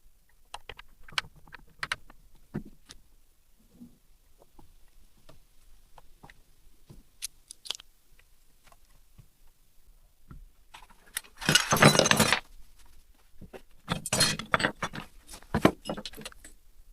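Small metal parts and tools clinking and rattling as they are handled, with scattered clicks at first, a loud bout of jangling about eleven seconds in, and more rattling a couple of seconds later.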